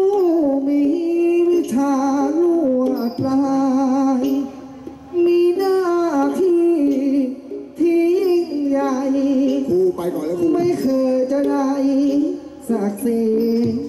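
Thai likay singing: one voice, amplified through a microphone, sings a slow melody full of wavering vibrato and gliding ornaments, in phrases of a few seconds with short breaks between them.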